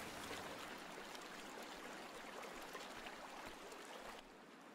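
Shallow river running over gravel: a steady, soft rushing hiss that drops quieter near the end.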